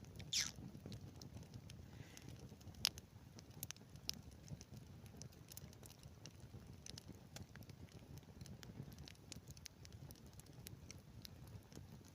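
Small wood campfire crackling as it catches, with scattered sharp pops over a low steady rumble; a brief falling hiss comes near the start, and the loudest pop a little under three seconds in.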